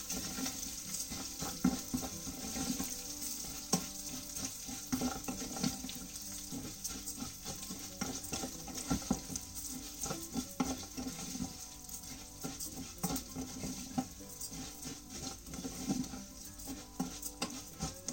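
Raw rice being stirred with a wooden spatula in smoking-hot olive oil in a stainless steel saucepan, coating the grains before the water goes in: a steady sizzle with irregular scrapes and clicks of the spatula against the pan.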